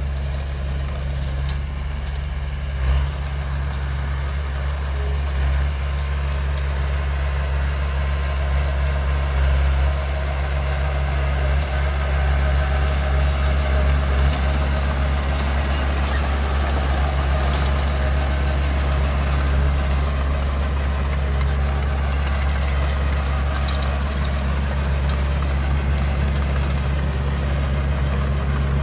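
Heavy diesel earthmoving machinery running steadily with a deep, even rumble, with a single sharp knock about three seconds in.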